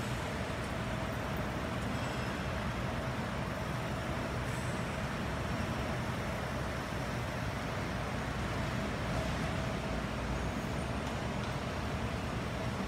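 Steady background noise: a low rumble and hiss with a faint steady hum running through it.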